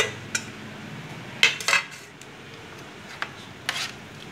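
Wooden chopsticks knocking against the side of a metal pot while stirring rice vermicelli into a wet egg mixture: a handful of irregular, sharp clinks, the loudest pair about a second and a half in.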